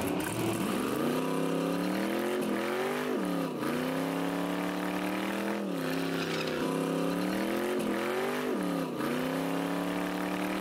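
A car engine revving hard and held at a steady high pitch during a burnout, dropping briefly and climbing back several times.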